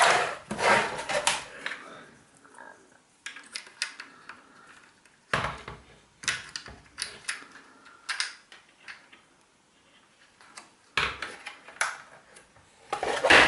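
Plastic casing and internal parts of an opened Triton Avena electric shower being handled and turned over on a worktop: scattered light clicks and taps, with a few louder knocks about five seconds in, around eleven seconds and near the end, as the thermal cut-out's cap is pushed back on.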